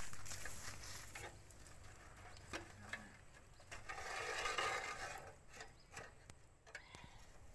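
Faint taps, scrapes and rustles of sticks and a metal bowl at a small charcoal grill, with a louder scraping rustle about four seconds in.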